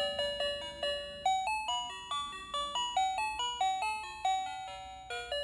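Electronic tune from a battery-operated toy dinosaur's built-in sound chip: a quick melody of short, bright beeping notes, several a second.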